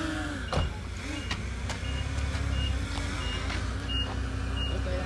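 Reversing alarm on a heavy construction vehicle beeping steadily, one high tone about every 0.7 seconds, over the low, steady running of the machine's engine. A sharp knock sounds about half a second in, with a couple of lighter clanks soon after.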